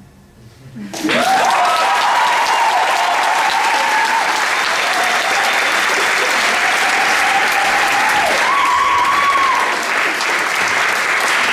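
Audience applauding loudly, starting about a second in after the song's last note dies away, with a few drawn-out cheering voices rising and holding over the clapping.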